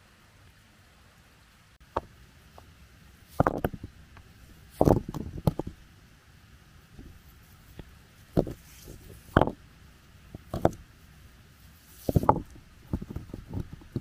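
Irregular knocks and thumps, singly and in short clusters, every second or two, as of hard objects being handled or struck.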